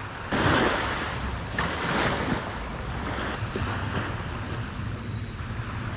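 Small waves washing up on a sandy beach, with wind on the microphone. The wash swells about half a second in and eases after a couple of seconds.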